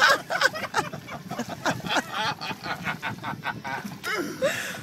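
People laughing hard in quick, breathy ha-ha pulses, several a second.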